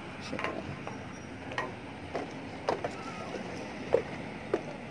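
Scattered light knocks and clicks, irregularly spaced and the loudest about four seconds in, over a steady outdoor background hiss.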